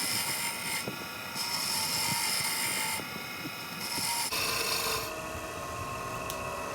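Wen benchtop wood lathe running, its motor whining steadily while a round-nosed turning chisel scrapes against the spinning wooden piece in repeated strokes, smoothing it. The cutting hiss comes and goes, and the sound changes about two-thirds of the way through.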